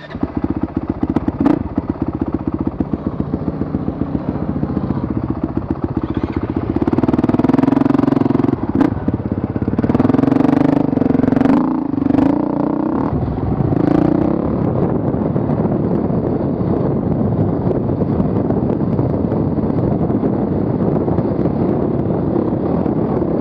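Honda CRF450 dirt bike's single-cylinder four-stroke engine heard from the rider's helmet as the bike rides a dirt trail, the throttle opened harder between about seven and fourteen seconds in before settling into a steady run. Several sharp knocks from the bike striking the trail.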